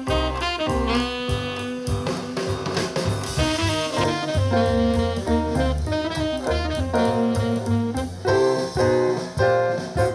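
Instrumental music played back through a portable Bluetooth speaker: a pitched melody over a strong bass line and steady drum hits.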